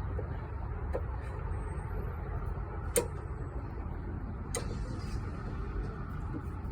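Car's scissor jack being cranked down by its handle: a few sharp metal clicks, the loudest about three seconds in, over a steady low rumble.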